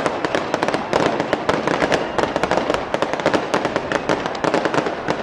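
Aerial fireworks going off in a dense, continuous run of rapid crackles and pops, many each second.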